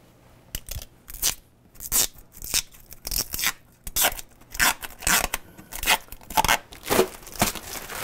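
Protective plastic film being peeled off a stainless dishwasher door: a series of short ripping strokes, about two a second, as the film comes away.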